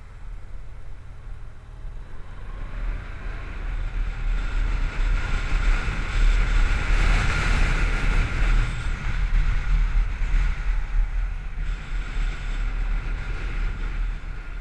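Wind rushing over a helmet-mounted action camera on a moving Honda DN-01 motorcycle, with a low rumble of wind buffeting, engine and road under it. The noise swells over the first several seconds as the bike picks up speed, then stays loud and steady.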